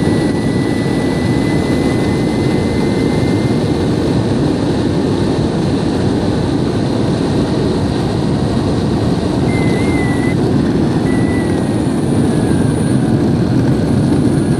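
Electric longboard's wheels rolling fast over coarse asphalt: a loud, steady rolling rumble, with a faint high whine during the first few seconds.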